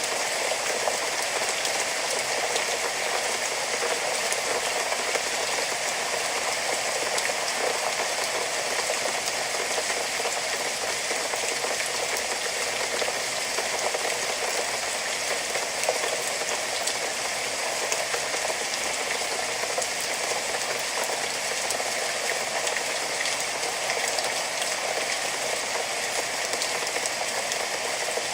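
Steady rain, an even hiss of many fine drops with no pauses or changes.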